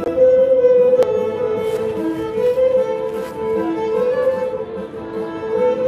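Solo violin played by a young street busker: a slow melody of held, bowed notes, amateurish playing that the uploader likens to caterwauling. A sharp click about a second in.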